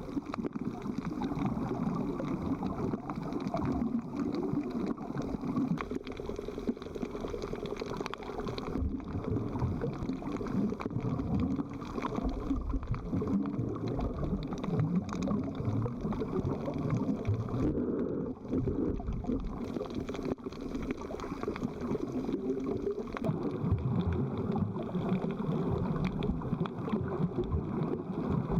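Steady rushing, gurgling water noise.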